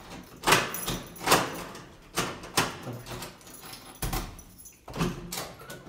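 Keys jangling and a door lock being worked as an apartment front door is unlocked and opened: a series of sharp metallic clicks and knocks, several seconds apart.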